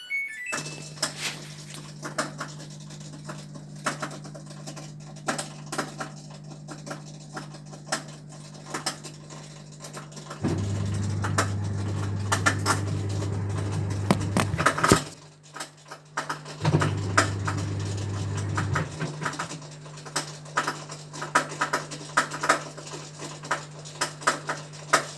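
Whirlpool washing machine running with a steady electric hum from a motor or pump. In several stretches the hum turns deeper and louder. Frequent clicks and rattles sound over the hum.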